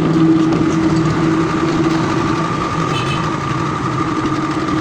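Honda Civic Rebirth engine running with a misfire, put down to bad spark plugs and ignition coils. It holds a steady pitch at an even level.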